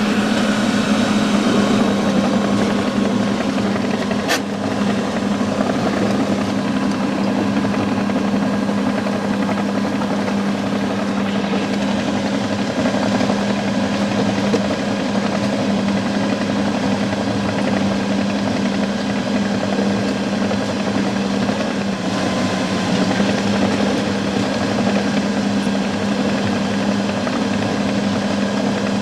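Diesel engine of heavy tracked construction machinery running steadily at constant speed, a loud even drone.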